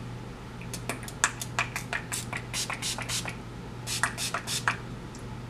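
Fine-mist spray bottle of water pumped rapidly, a quick run of short hissing spritzes about a second in. A second, shorter run comes around four seconds in.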